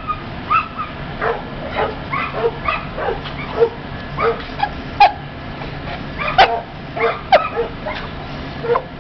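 Dogs barking and yipping in quick, irregular succession, about two short calls a second, with the sharpest, loudest barks about five and six and a half seconds in.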